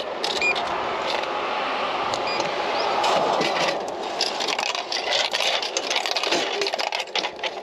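Steady rushing noise like passing road traffic, with a run of clicks and knocks in the second half as a beer vending machine drops a can into its tray.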